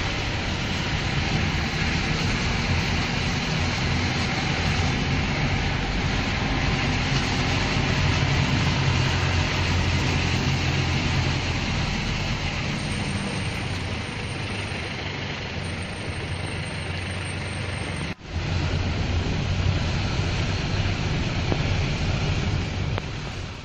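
Steady heavy rain falling, an even hiss with a low rumble underneath; it drops out for an instant about eighteen seconds in.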